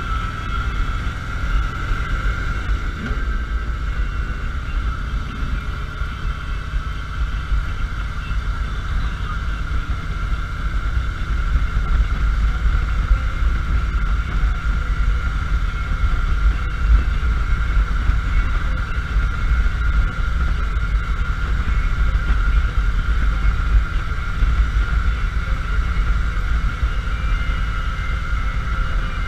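Cruiser motorcycle engine running under way at a steady cruising pace, with wind noise on the helmet-side or bike-mounted camera and a steady high whine over the low rumble.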